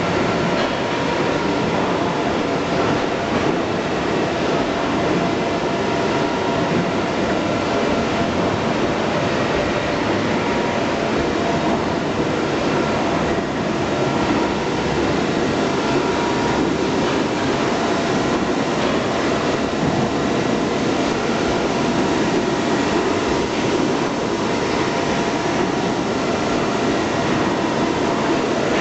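A 1973 Roland R804 sheetfed offset printing press running steadily: a continuous mechanical clatter and hum with a few faint steady whining tones.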